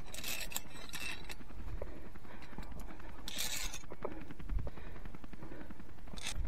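A climber's movement on a via ferrata: hissy scrapes of gear and boots on rock and the iron ladder, one about a second long at the start and a shorter one about three seconds in, with light knocks and a low rumble on the microphone.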